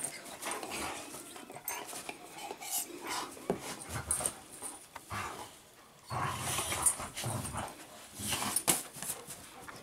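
Two dogs play-wrestling, with low growls now and then, about four seconds in and again from about six seconds, over panting and the scuffle of bodies on blankets.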